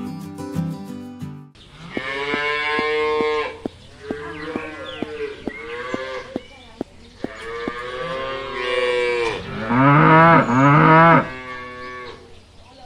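Cattle mooing: four long calls one after another, the last and loudest a pair of shorter calls near the end. A run of light, evenly spaced clicks sounds under the middle calls, and background music plays in the first second or so.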